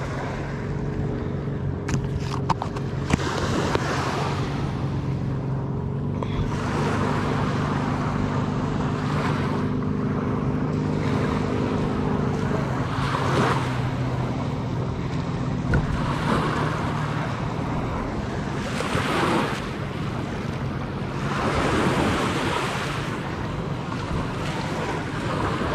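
Wind buffeting the microphone and water lapping at the reservoir shore, swelling every few seconds. A steady low hum runs under it through the first two thirds and fades out.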